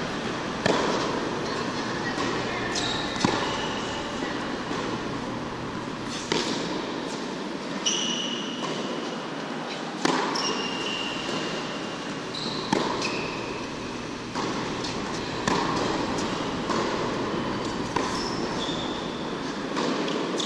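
Tennis ball struck back and forth in a rally on an indoor hard court, with a sharp racket hit or bounce every two to three seconds. Short high sneaker squeaks fall between the hits, over the steady noise of the hall's ventilation fans.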